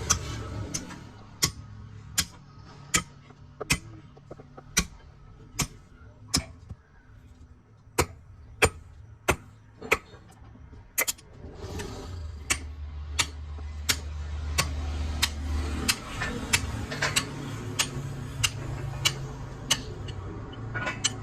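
Repeated sharp knocks, about one a second and unevenly spaced, with a low steady hum for a few seconds in the middle.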